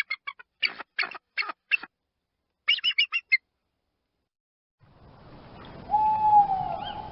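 An eagle's rapid series of high, sharp calling notes in two quick bursts, a short pause, then a different recording with background hiss and a single lower, held, hoot-like call that falls slightly in pitch, about six seconds in.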